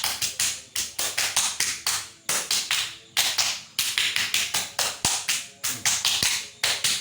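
Hands patting and slapping on a person's body during a traditional massage treatment: quick runs of sharp taps, about four to five a second, with short pauses between runs.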